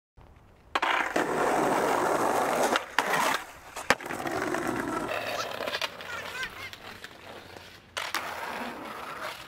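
Skateboard wheels rolling over concrete paving slabs, with sharp clacks of the board about three and four seconds in. The rolling then grows quieter and picks up again loudly near the end.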